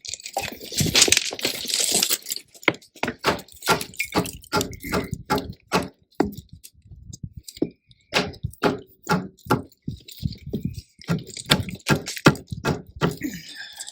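A run of sharp, irregular knocks and taps of a hand tool on stone, with a scraping rasp in the first couple of seconds: stone veneer being knocked into place or chipped to fit.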